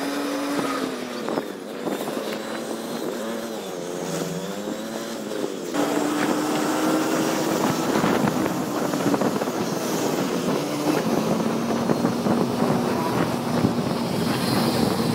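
Engine of a moving road vehicle, heard from on board, with wind and road noise. Its pitch rises and falls with the throttle, dips about four seconds in, then after an abrupt change about six seconds in runs steadier, dropping a little near eleven seconds.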